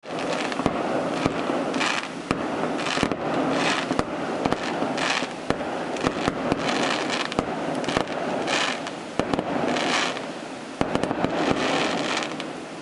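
Fireworks display: many sharp pops and bangs of bursting shells, with short bursts of crackling hiss every second or so, over a steady background noise.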